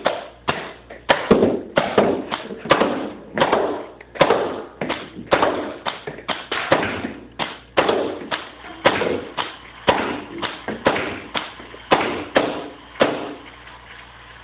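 Paintball marker firing rubber reballs, about twenty sharp shots in quick, uneven succession. They stop a little before the end.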